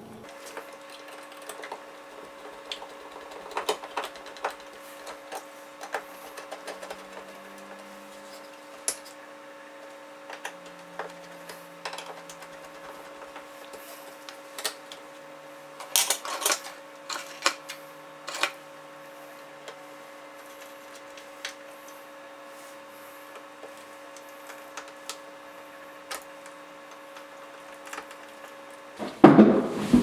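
Scattered small clicks and taps of a screwdriver on plastic wall-switch parts as a rocker switch and dimmer are screwed into the wall box and the cover plate fitted, over a faint steady hum. A louder burst of handling noise comes near the end.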